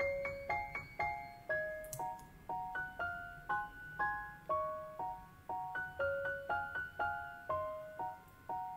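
Soft background piano music: a simple, gentle tune of single notes played about twice a second, each note fading away.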